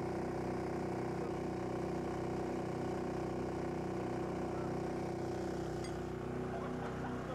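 A steady engine hum holding a few fixed tones, with no breaks or changes in speed.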